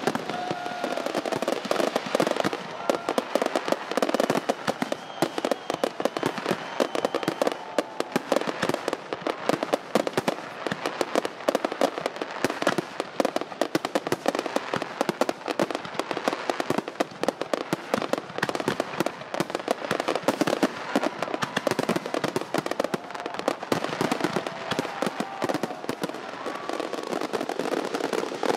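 Fireworks going off in a dense, unbroken barrage of rapid pops and crackles.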